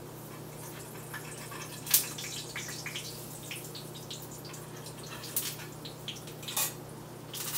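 Hush-puppy fritters frying fast in a hot skillet, a steady sizzle with scattered crackles and pops. A sharp click about two seconds in is the loudest sound.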